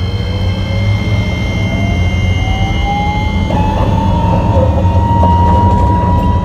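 Hiroden 5100-series (Green Mover Max) low-floor tram, car 5108, accelerating, heard from inside the car. The traction motors' whine rises steadily in pitch for about three and a half seconds, then levels off, over a steady low rumble from the running gear.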